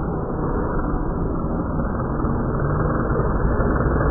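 Single-engine propeller plane flying low and close, its engine and propeller noise growing steadily louder as it approaches.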